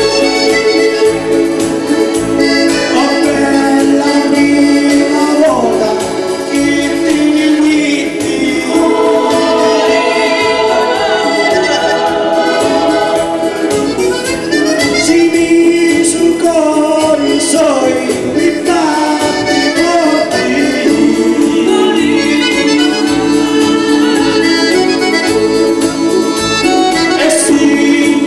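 Piano accordion playing a folk tune, with a man singing along into a microphone.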